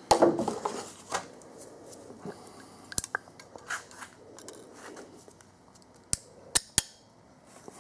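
Steel hose-clamp pliers and a spring band clamp on a rubber coolant hose clicking metal on metal as the pliers grab and squeeze the clamp tabs: a loud burst of handling noise at the start, a sharp click about three seconds in, and three quick clicks near the end.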